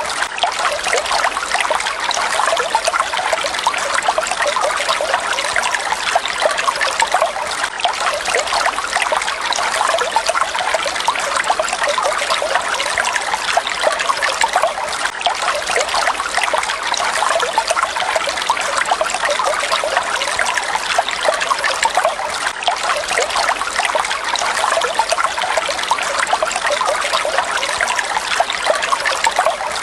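Water falling and splashing steadily, a continuous dense trickling and spattering that stays even throughout, with little low rumble.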